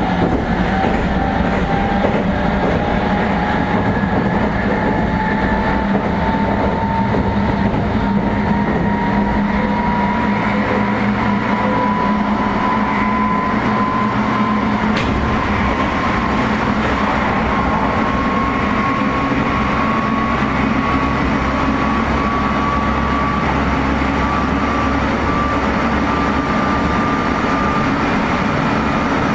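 Meitetsu 3500 series electric train heard from inside the car: the high-pitched whine of its Toyo Denki GTO-VVVF traction motors climbs slowly and evenly as the train gains speed, over a steady rumble of wheels and running gear. A single sharp click sounds about halfway through.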